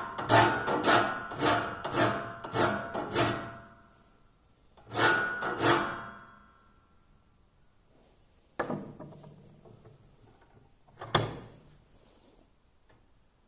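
Flat file drawn by hand across the teeth of a bandsaw blade to sharpen them: rasping strokes about two a second for the first few seconds, then two more strokes. Later a single knock and a sharp click.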